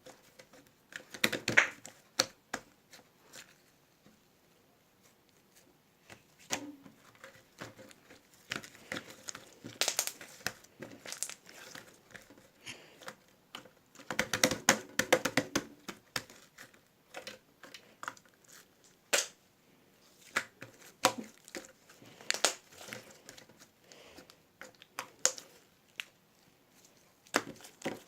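Irregular crinkling and rustling with scattered sharp clicks, in short spells, the longest and densest about halfway through.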